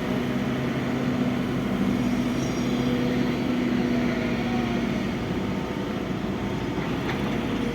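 Diesel engine of heavy construction machinery running at a steady speed.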